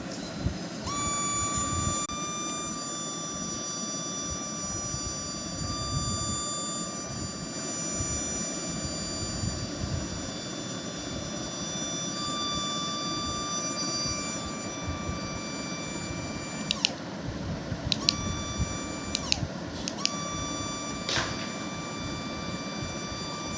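A faulty spinning ball toy giving a steady high whine instead of working. The whine starts about a second in, drops out twice briefly past the middle and comes straight back.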